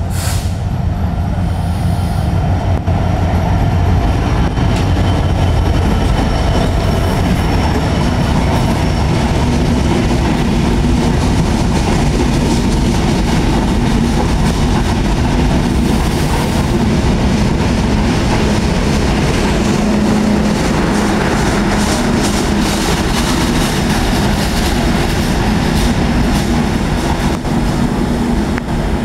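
Diesel-hauled Bangladesh Railway express passenger train running through a station close by at speed: the locomotive passes early on, then a long string of coaches goes by with a loud, steady rumble and the clickety-clack of wheels over the rail joints.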